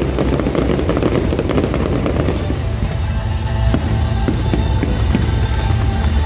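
Fireworks crackling and popping, dense for the first couple of seconds and then thinning to scattered pops, over music.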